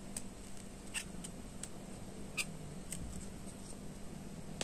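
A steel crochet hook working stitches in acrylic yarn, giving a few faint, irregular clicks and ticks over a low steady hum.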